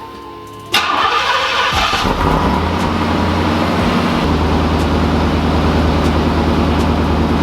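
A 1991 Pontiac Firebird Formula's 305 Tuned Port Injection V8 starting about a second in: it fires, flares up briefly, then settles into a steady idle.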